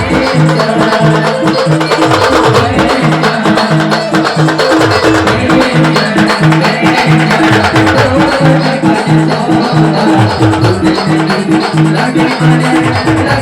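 Loud music with a steady driving beat: repeated low bass notes and fast percussion.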